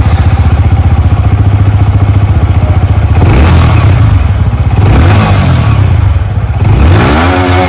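Yamaha MT-15 V2's 155 cc liquid-cooled single-cylinder four-stroke engine idling with a fast steady beat, then revved in several throttle blips from about three seconds in, its pitch rising and falling with each one.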